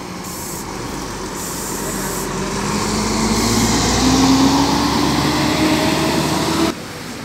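Diesel engine of an intercity coach bus accelerating as it pulls away past, its engine note rising steadily in pitch and growing louder, then cutting off suddenly near the end.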